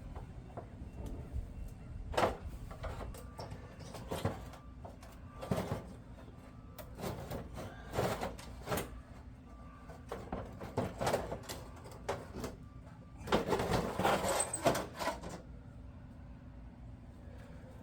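Irregular knocks and clatter of parts being handled, with a denser stretch of rattling about two-thirds of the way through, over a low steady hum.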